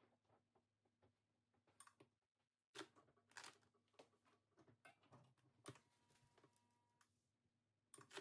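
Faint handling of an impulse sealer and plastic filter patch bag: scattered clicks and crinkles as the bag is positioned and the sealing arm pressed down. This is followed by a faint steady electric tone for just over a second while the arm is held down to heat the seal.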